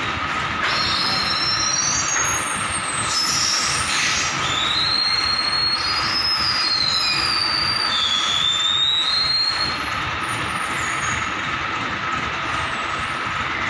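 Overhead crane hoist running with a load slung from its hook, with a steady mechanical hum and high metal squeals that slide in pitch for most of the first two-thirds, then a steady hum alone.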